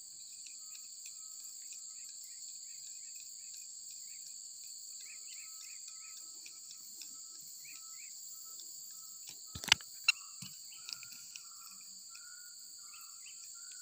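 Steady high-pitched chorus of crickets and other insects, with faint short chirps. About ten seconds in come two sharp clicks close together from the fishing rod and spinning reel being handled.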